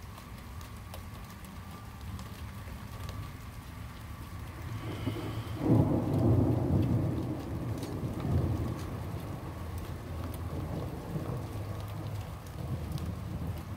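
Thunder with steady light rain and scattered raindrop taps. A low rumble builds, cracks in sharply about six seconds in and rolls on for several seconds before easing.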